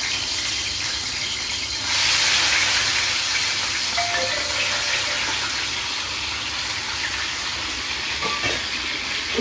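Raw chicken pieces sizzling in hot oil in a wok, the start of frying for chicken karahi. The sizzle is a steady hiss that jumps louder about two seconds in, as the rest of the chicken goes into the oil.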